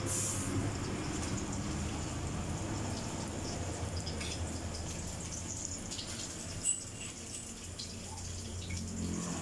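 Pork barbecue frying in oil in a wok: a steady sizzle with small crackling pops, over a low steady hum, and one sharp click about two-thirds of the way through.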